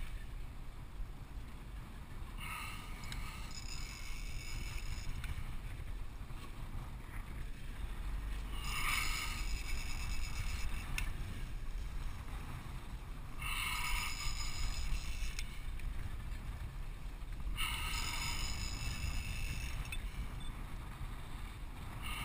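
A fly reel whirring in bursts of one and a half to two seconds, about every four to five seconds, while a tuna is fought from a small open boat. Under it runs a steady low rumble of wind on the microphone and the boat's outboard motor.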